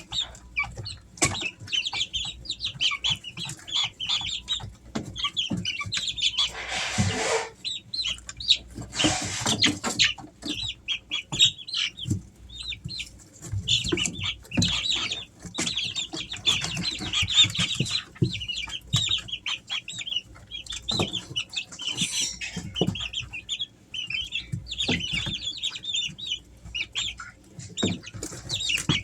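A brood of three-week-old Easter Egger chicks peeping and chirping continuously, many short high calls overlapping. Two brief rustling bursts break in about a quarter and a third of the way through.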